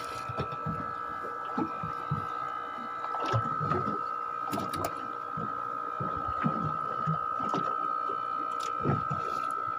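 A steady high mechanical whine with one unchanging pitch, over scattered knocks and low thuds.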